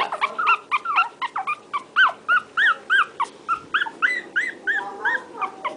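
Four-week-old Shih Tzu puppies whimpering and squeaking in a rapid string of short, high cries, about three or four a second, some overlapping.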